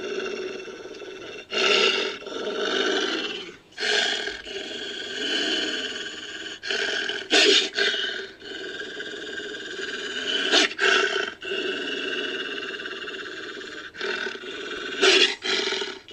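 Designed creature sound effect for a sabre-toothed wolf, made from real wolf recordings: a continuous rough wolf-like vocalisation broken by about five short, loud outbursts.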